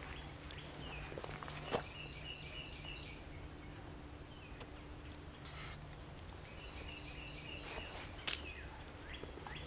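A songbird singing a quick phrase of rapidly repeated chirps, about two seconds in and again near the end, over a steady low outdoor hum. Two sharp clicks stand out, one near the two-second mark and one late on.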